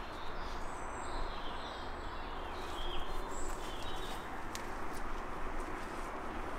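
Woodland ambience: a steady background hiss with faint short bird chirps in the first half, and a few light clicks in the second half.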